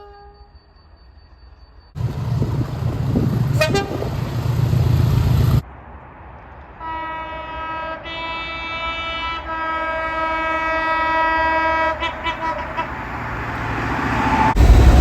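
Multi-chime train air horn sounding a chord of several steady notes in about three blasts, the last the longest, over a train's rumble. Before the horn, a few seconds of loud train rumble start and stop abruptly. The rumble builds again toward the end.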